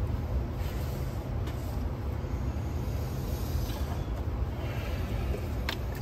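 Steady low background rumble, with a few faint scraping sounds and one sharp click near the end.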